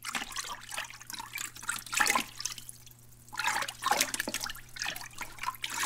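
Water splashing and trickling in irregular surges, loudest about two seconds in and again around four seconds, over a faint steady low hum.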